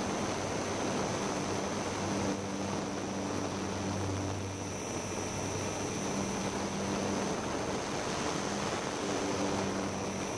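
Steady rushing wind noise on a camera carried aloft on a small aircraft, with a faint low hum that comes and goes and a thin high whine underneath.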